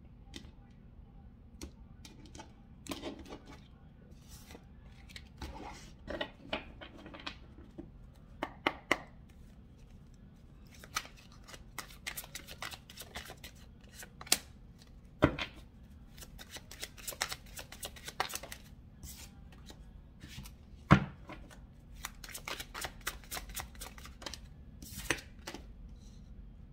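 Tarot cards being shuffled and dealt onto a marble tabletop: flurries of quick card snaps and rustles, mostly in the middle and near the end, with two sharp taps as cards are put down.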